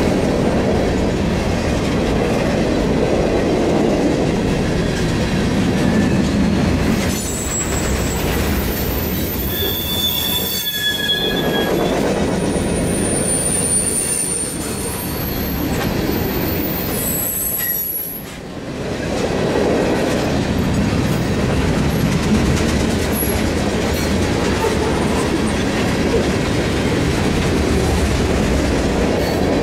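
Cars of a long mixed freight train rolling past close by at speed: a steady rumble of steel wheels on rail, with thin high-pitched wheel squeals coming and going through the middle and a brief dip in loudness about two-thirds of the way through.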